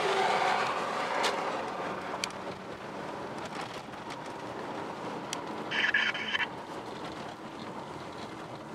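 Car rolling slowly along a gravel road: a steady rumble of tyres and engine, loudest at first and easing off. About six seconds in, a brief high-pitched beeping sound lasts about half a second.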